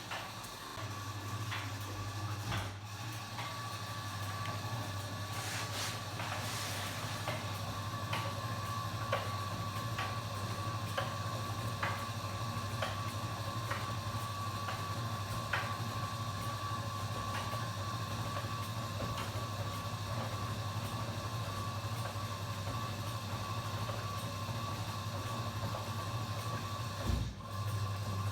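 Kenwood washing machine's motor turning the drum: a steady hum that starts about a second in, with light, regularly spaced clicks over it. It stops for a moment near the end and then starts again.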